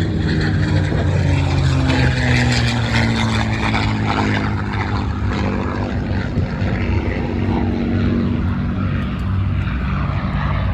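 Piston fighter aircraft, a P-51C Mustang with a Packard-built Merlin V12, running at power in flight. The engine's pitch drops over the first few seconds, then holds steady.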